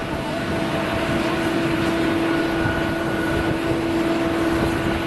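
Jet engines of an Airbus A330-300 taxiing at low thrust: a steady rushing hum with a few steady whining tones held over it.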